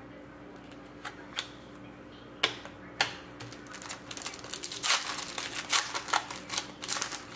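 Trading cards handled and set down with a few sharp clicks, then a foil card pack being torn open and its wrapper crinkled, a dense run of quick crackles and clicks through the second half.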